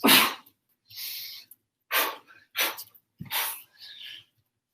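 Sharp, forceful exhalations, about six in under five seconds, some loud and some softer hisses: the breath a martial artist pushes out with each kick or strike.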